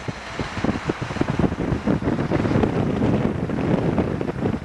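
Wind buffeting the microphone of a car pacing a slow-moving freight train, over the train's rumble, with a rapid, irregular thumping throughout.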